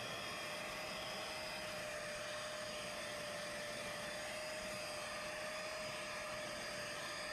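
Carpet extractor's vacuum motor running steadily with a high, steady whine, its wand being drawn across car floor carpet.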